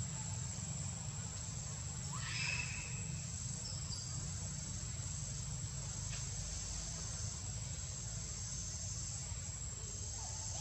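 A steady, high-pitched insect drone, like crickets, over a constant low rumble, with a brief faint chirp about two seconds in.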